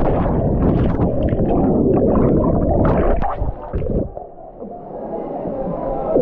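Muffled rushing and bubbling of water heard from a microphone plunged under water after a jump into a waterfall pool. It dies down about four seconds in.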